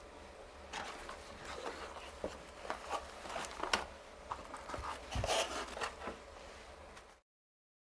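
Light handling sounds from glass eyes and their tray being touched and moved: scattered small clicks and taps with faint rustling over a low steady hum, and one dull knock about five seconds in. The sound cuts off suddenly a little after seven seconds.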